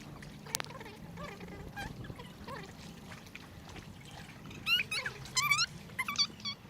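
Birds calling in a run of sharp, high, squawking chirps that starts about four and a half seconds in, over faint water sounds.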